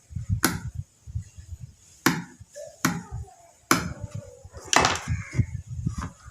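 Sharp clicks and knocks, about six at irregular spacing, over low rumbling handling noise, as tools and hands work on a home theater amplifier circuit board.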